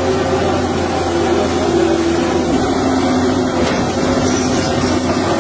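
Amphibious pontoon excavator's diesel engine running steadily at an even pitch.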